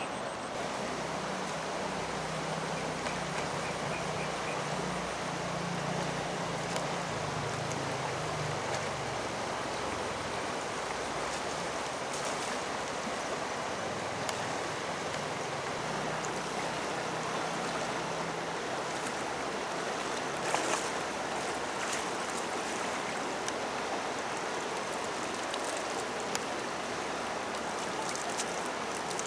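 Fast-flowing, swollen muddy river rushing steadily, with a faint low drone underneath in the first several seconds and a few light knocks in the second half.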